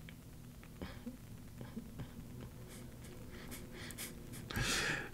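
Low room tone with a faint steady hum and a few small clicks, then a man's short, breathy, wheezy laugh near the end.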